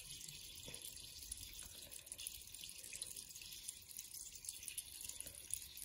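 Small aquarium filter's outflow falling into the tank water: a steady, faint trickling splash.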